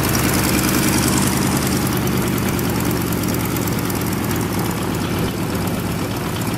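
Boeing Stearman biplane's radial engine and propeller running steadily, heard from the open cockpit with a rushing hiss of air over the microphone.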